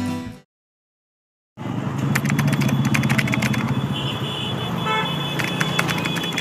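Intro music fades out, then after a second of silence, the running engine and road noise of a vehicle moving along a road, with a short horn toot about five seconds in.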